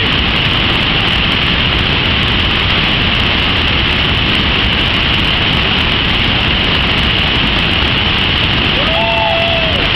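Waterfall pouring into churning white water: a loud, steady rush of water. A person's brief call rises and falls about nine seconds in.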